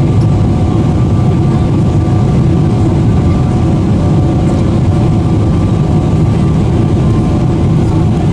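Steady cabin noise inside a Boeing 777-300ER on approach: the drone of its GE90 engines and the airflow, a low rumble with a few faint steady tones over it.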